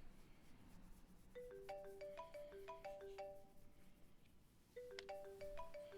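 Marimba-style mobile phone ringtone: a short rising melody of bright mallet tones, playing twice with a pause between, heard faintly.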